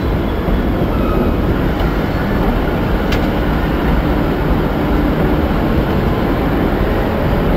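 Electric suburban train at a station platform: a steady rumble, with a faint hum in the middle and a sharp click about three seconds in.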